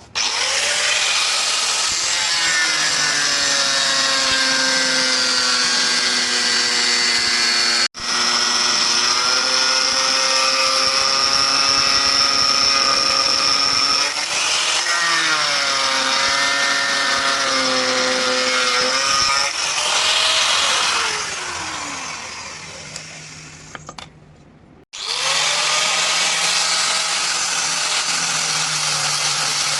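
An electric power tool's motor whines up to speed and runs under varying load with a steady hiss. It winds down with a falling whine about twenty seconds in, then starts up again near the end.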